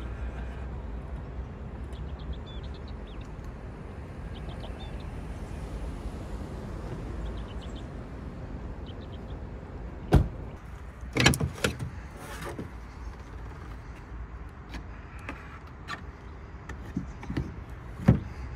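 Steady low background rumble, with a few sharp knocks and clicks midway. Near the end comes a loud click as a Tesla Supercharger connector is pushed into a Tesla Model Y's charge port.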